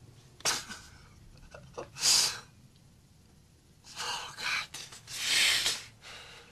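A man crying behind his hands: sniffs and shaky, breathy intakes of breath, a short one early, a louder one about two seconds in, then two longer ones near the end.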